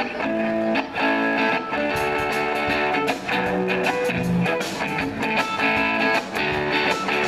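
Guitar being strummed, a run of chords in a steady rhythm.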